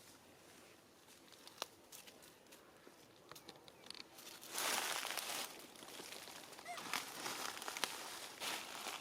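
Crinkling and rustling with scattered small clicks, and a louder rustle lasting about a second near the middle.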